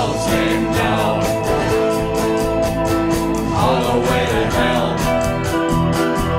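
A live rock band playing, with guitars and keyboard over drums that keep a steady beat.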